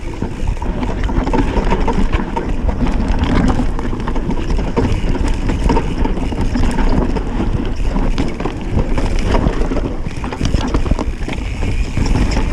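Wind buffeting a helmet-mounted camera's microphone as a mountain bike rides fast down a dirt forest trail, with tyres running over dirt and roots and the bike rattling and knocking over the bumps.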